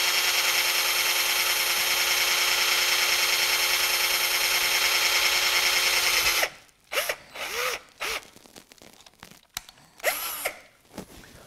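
Cordless drill running steadily at speed while boring a 3/16-inch hole through a trolling motor shaft, stopping abruptly about six and a half seconds in. Several short trigger pulls follow, with the motor briefly spinning up and winding down.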